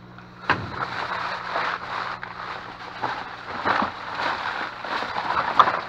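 Plastic candy wrappers and bag crinkling and rustling as candy is handled and sorted, in irregular crackly bursts with a few sharper rustles, over a steady low hum.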